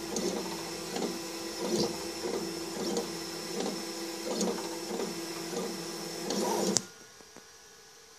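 Stepper motors of a blue 3 W diode laser engraver whirring in repeated back-and-forth strokes, about two a second, over a steady hum as the head rasters an image. About seven seconds in the machine stops abruptly with a click, leaving only a faint hum: the engraving is finished.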